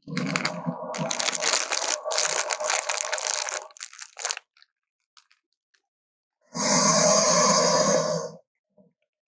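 Dubbed creature sound effects: about four seconds of crunching and tearing, like a bite into flesh and bone. After a pause of about two seconds comes a loud call lasting about two seconds.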